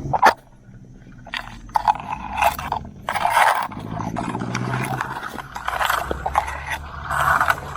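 A sharp knock, then irregular scraping and rustling, with a low engine hum running underneath at times.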